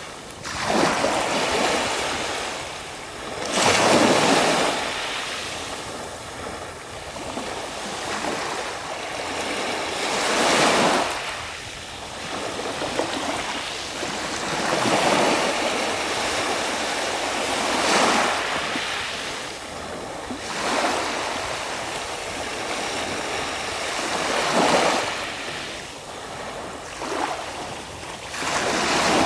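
Small Baltic Sea waves washing and lapping around shoreline boulders, the surf swelling and falling away every few seconds.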